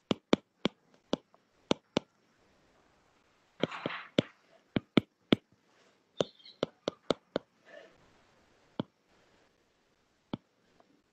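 Stylus tapping on a tablet's glass screen during handwriting: a string of sharp, irregular clicks, with a short soft rush of noise about four seconds in.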